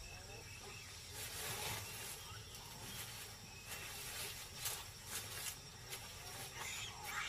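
Faint outdoor natural ambience: a steady hiss with a few short, soft scratchy sounds. Animal calls start to rise right at the end.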